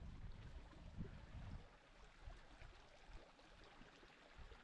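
Near silence: a faint low rumble with a few soft knocks for about the first second and a half, then only faint outdoor room tone.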